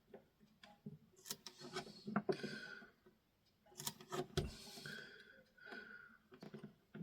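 A small plastic radio battery cover being scraped with a hand tool to lift off old foam and adhesive: short, faint scraping strokes mixed with light clicks and knocks, with a brief pause about three seconds in.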